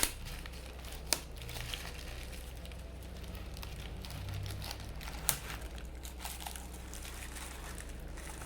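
Packaging crinkling and rustling as fan blades are worked out of tight packing, with a few sharp clicks along the way.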